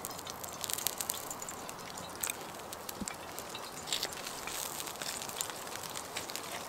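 Wood fire crackling in a small titanium camp stove, with frequent short, sharp pops scattered throughout.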